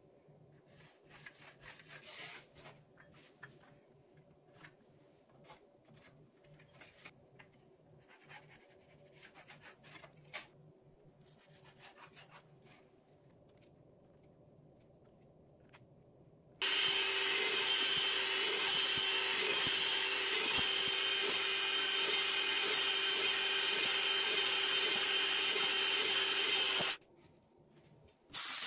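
Pencil scratching along a steel rule and square on wood in short, faint strokes. About 17 seconds in, a loud woodshop power tool starts at full volume, runs steadily at a constant pitch for about ten seconds, then cuts off.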